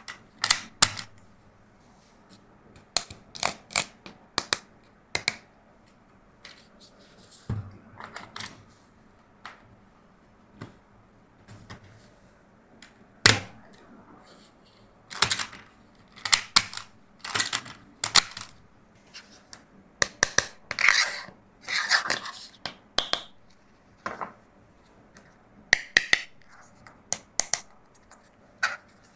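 Hard plastic toys being handled: irregular sharp clicks and clatters, some in quick clusters, with one louder clack about halfway through.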